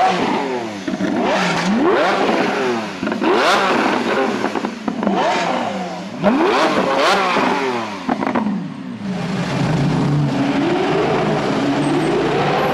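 Lamborghini Aventador V12 being revved hard in about five quick blips, each rising sharply in pitch and falling back. After about nine seconds the revving stops and a steadier engine note climbs slowly.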